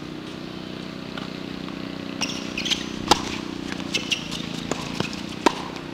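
Two sharp tennis ball strikes off racket strings about two and a half seconds apart during a rally, over a steady low engine hum. Brief high squeaks come between the hits.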